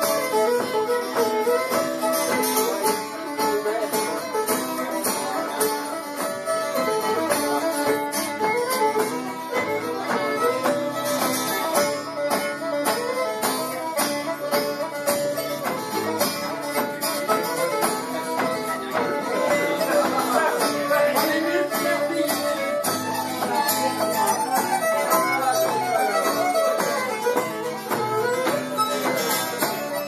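Fiddle and acoustic guitar playing an Irish traditional tune, the fiddle carrying a fast-moving melody over strummed guitar chords.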